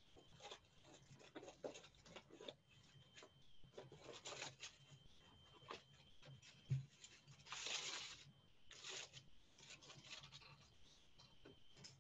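Faint, scattered rustling and scraping noises close to a microphone, with one short low knock about two-thirds of the way through, over a faint steady hum.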